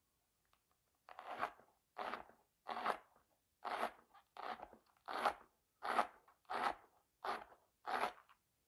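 Kitchen knife slicing through a lettuce heart on a cutting board: about ten cuts, roughly three every two seconds, starting about a second in.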